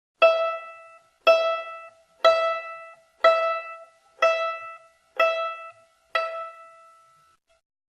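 A plucked string instrument sounding the same high note seven times, about once a second, each note starting sharply and dying away quickly.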